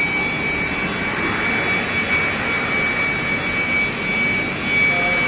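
A machine running steadily: an even rushing noise with a constant thin high whine over it.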